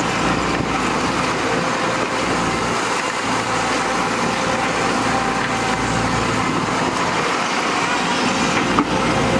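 Samsung wheeled excavator's diesel engine working steadily under hydraulic load as it swings and dumps dirt into a dump truck, with a single sharp knock near the end.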